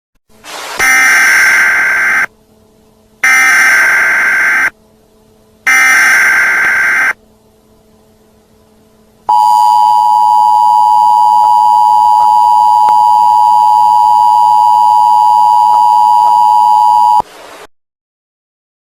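Emergency Alert System signal. First come three bursts of the SAME digital header, each a harsh data screech about a second and a half long with a second's pause between them. Then the EAS two-tone attention signal (853 and 960 Hz) sounds as a steady dual tone for about eight seconds and cuts off sharply.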